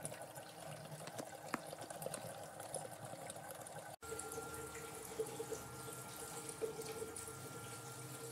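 Water running and trickling through a hydroponic flood-and-drain gutter channel, with small drips. After a break about four seconds in, a faint steady tone sounds along with the water.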